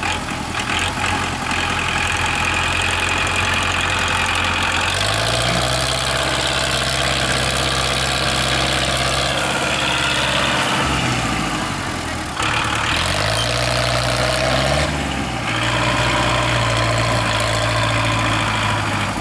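Diesel tractor engine running hard while pulling a trolley heavily loaded with sugarcane. Its revs rise about a quarter of the way in, sag briefly around the middle, then climb again and hold steady.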